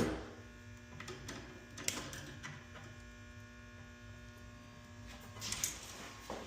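Steady electrical hum, with a few faint clicks and a brief rustle of handling near the end.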